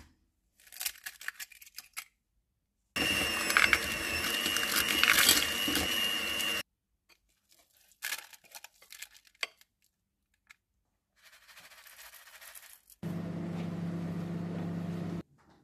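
A run of kitchen sounds as a cake batter is made in a glass bowl: a few clicks, then a loud stretch of mixing. Near the end comes a Panasonic microwave oven running with a steady hum, which cuts off suddenly.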